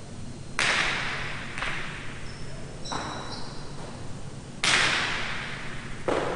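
Jai alai pelota striking the fronton walls and floor during a serve and rally: five sharp cracks, each echoing through the large court, the loudest about half a second in and again near the middle. A short high squeak comes about three seconds in.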